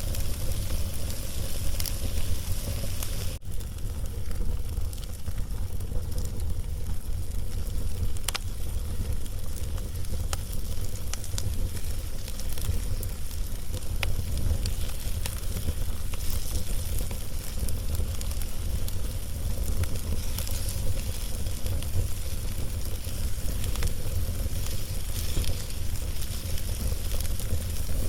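Wood log fire burning, with a steady low rumble and scattered sharp crackles and pops.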